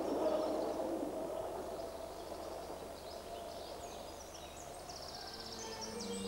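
Outdoor ambience: a steady noisy background with scattered small bird chirps and a quick high trill about five seconds in. Soft music fades in near the end.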